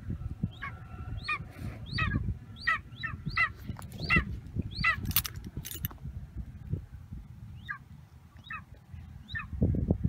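Young golden eagle giving a series of short, high chirping calls, one or two a second, with a pause midway. A couple of sharp knocks come about five seconds in.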